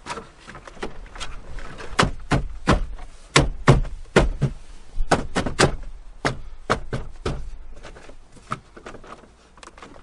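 Plastic dashboard trim of a Chevrolet Silverado being pushed and tapped back into place by hand: an irregular string of sharp knocks and clicks, a few each second, loudest around the middle and dying out near the end.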